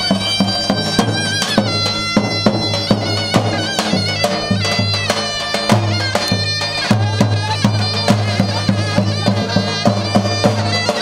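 Davul and zurna playing live dance music: the shrill, reedy zurna carries an ornamented folk melody over steady beats of the large double-headed davul drum.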